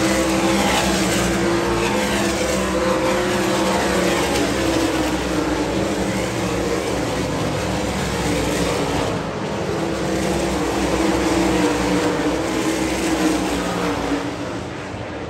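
Several 358 sprint cars' V8 engines at race speed on a dirt oval, the pitch rising and falling as the drivers get on and off the throttle through the turns and the cars sweep past. The sound eases off a little near the end.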